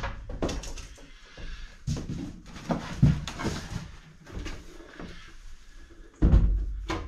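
Cardboard boxes and packaged solar gear being handled: scattered knocks and rustles, then a heavier low thump about six seconds in as a unit is set down on the floor.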